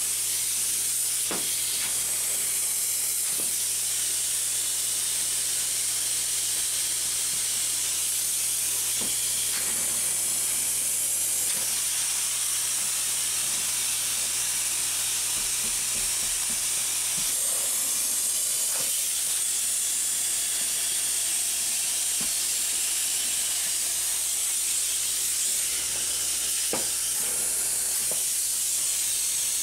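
Spray foam gun hissing steadily as it sprays foam insulation into a wall cavity behind netting, with a few faint ticks along the way.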